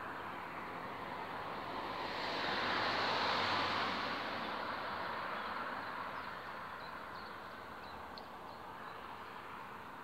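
A vehicle passing by: a rushing noise that swells to its loudest about three seconds in, then slowly fades away.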